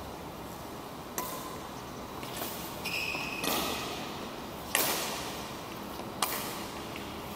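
Badminton rackets striking a shuttlecock in a rally: four or five sharp cracks a second or so apart, the loudest just before the five-second mark, each ringing on in the large hall. A short high squeak comes about three seconds in.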